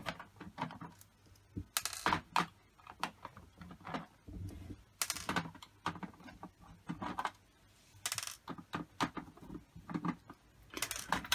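Small screwdriver working screws out of a PlayStation 4 disc drive's metal-covered circuit board: irregular light clicks and short scrapes, with small metallic clinks of screws and tool.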